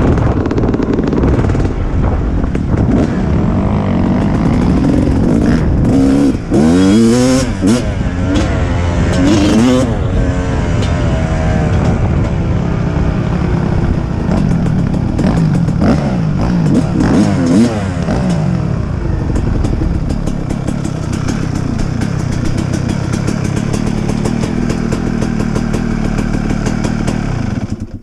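Dirt bike engine running as the bike is ridden, revving up and down several times through the middle, then settling to a lower steady idle and cut off at the very end.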